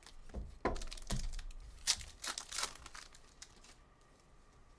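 Trading card pack wrapper being torn open and crinkled in the hands: a run of crackling rips for the first few seconds, dying down near the end.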